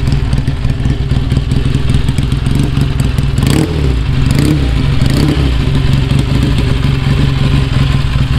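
Vintage motorcycle engine running at idle with a fast, even beat. It is revved briefly three times around the middle.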